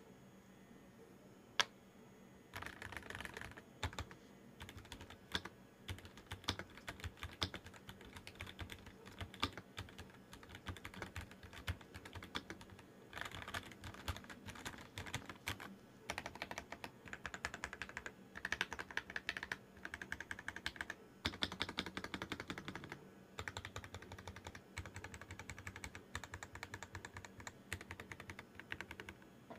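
Typing on a Yunzii Keynovo IF98 Pro gasket-mounted mechanical keyboard: a single keystroke, then fast runs of key clicks with short pauses between bursts.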